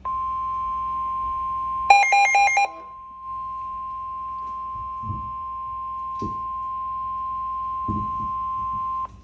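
NOAA Weather Radio 1050 Hz warning alarm tone, a steady single-pitch tone that holds for about nine seconds and then cuts off. It is the signal that a warning-level alert, here a severe thunderstorm warning, is about to be read. About two seconds in, a quick run of higher alternating beeps plays over the tone for under a second, and a few soft thumps follow later.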